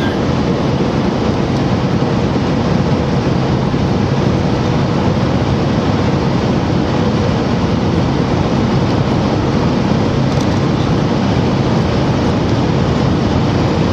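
Steady road and engine noise of a car driving at highway speed, heard from inside the cabin.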